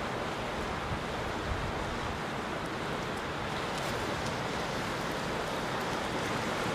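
Sea surf washing over the rocky shore, a steady rush of noise.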